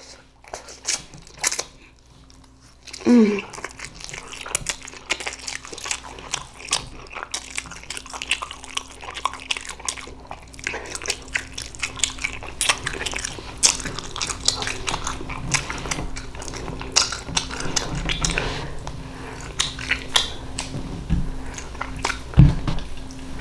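Close-miked eating of ramen noodles: wet chewing, slurping and many small mouth smacks and clicks. A short vocal sound falling in pitch, about three seconds in.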